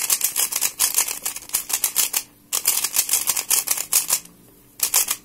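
MoFang Thunderclap v2 plastic 3x3 speed cube being turned fast: quick clacking of its layers in two runs, broken by a short pause about two and a half seconds in, then a few last turns near the end.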